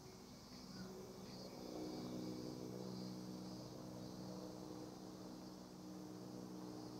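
Faint street ambience: a steady low mechanical hum, such as idling or passing engines, with a faint high hiss above it.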